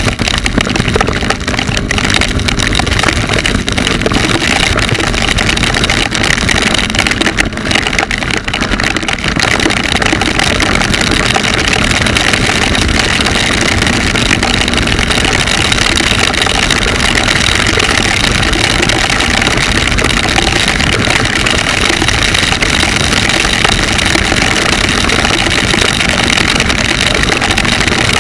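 Motorcycle riding at road speed in the rain: the engine's steady drone under a loud, even rush of wind and wet-road noise.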